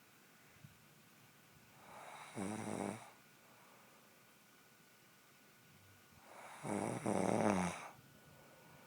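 A woman snoring in her sleep: two snores about four seconds apart, the first short and the second longer and louder.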